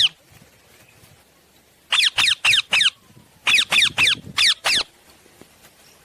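Ringneck parakeet calling: two quick runs of about four short, shrill squawks, each sliding down in pitch, starting about two seconds in and again about three and a half seconds in.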